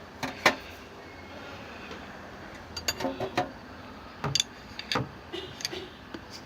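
Scattered light clicks and knocks of small metal parts as the wiper mechanism's greased pivots and linkage are handled and fitted, a few at a time.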